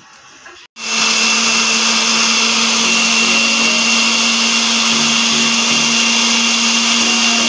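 Countertop blender motor starts abruptly about a second in and then runs at one steady speed, a loud whirring with a constant hum, puréeing tomatoes, onion, garlic and chipotle peppers into a smooth sauce.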